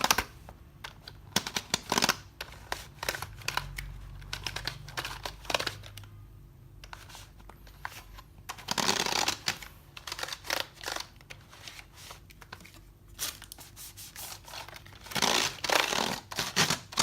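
Computer keyboard being scrubbed with a handheld cleaner's sponge: irregular clicks and clatter of the keys under the rubbing, with two longer scratchy stretches of scrubbing, one in the middle and one near the end.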